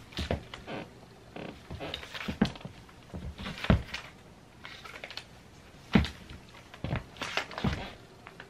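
Rubber-soled sneakers stepping and shuffling on a hardwood floor: irregular thumps and scuffs with rustling between, the loudest thumps about three and a half seconds in and again at six seconds.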